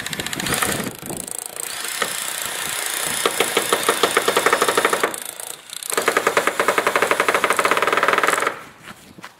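Power drill driving screws into wood: a short run, then two longer runs of fast rattling over a steady motor whine, with a break about five and a half seconds in.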